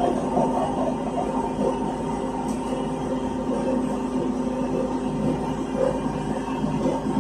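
Steady hum inside a ZiU-682G trolleybus standing still, with a few steady tones over a low even noise.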